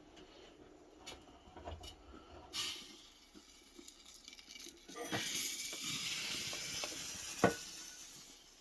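Freshly percolated coffee pouring from a stovetop percolator into a cup, a steady hiss that fades out, with small clicks and knocks of the pot. One sharp clink comes near the end.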